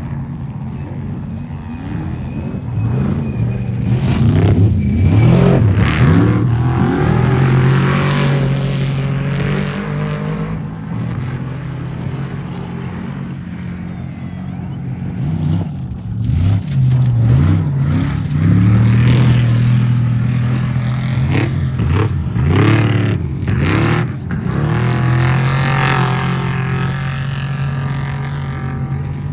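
Off-road race truck engine at full race pace, its pitch rising and falling again and again as the throttle comes on and off, between stretches of steady high-rev running. Loud throughout.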